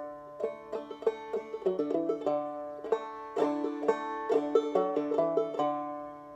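Five-string banjo played clawhammer style in double D tuning: a short phrase of plucked notes in an even rhythm, the last note ringing out and fading near the end.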